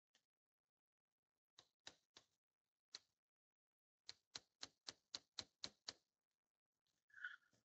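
Small hammer tapping on steel parts of a 1953 Allis-Chalmers B hydraulic pump: a few scattered light taps, then a quick, even run of about eight taps, roughly four a second.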